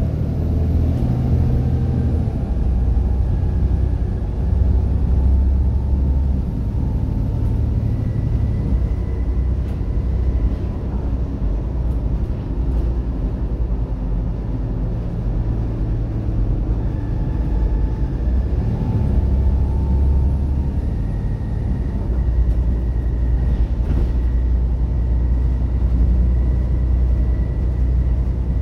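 Volvo B7TL double-decker bus, its six-cylinder diesel engine running under way: a steady low drone with a faint high whine. The drone's note shifts twice, about six and about eighteen seconds in.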